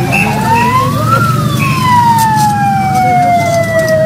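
Ambulance siren wailing in one slow cycle: it rises to a peak about a second in, slides slowly down for about three seconds, then starts to rise again at the end, over a low rumble.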